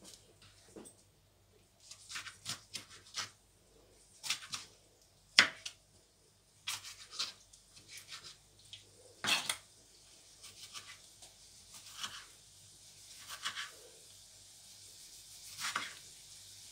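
Chef's knife slicing and dicing a tomato on a plastic cutting board: irregular cuts and sharp taps of the blade on the board. The knife is not as sharp as the cook had thought.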